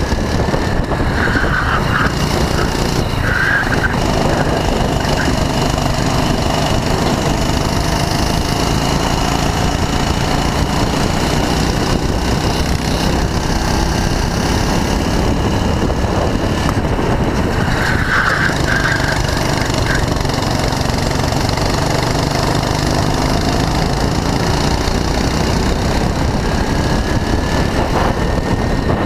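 Go-kart engine running at racing speed, heard on board. Its note rises and falls slowly as the kart slows for corners and speeds up again.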